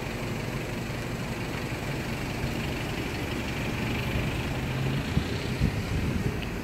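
A motor running steadily with a low hum, with a few short knocks about five to six seconds in.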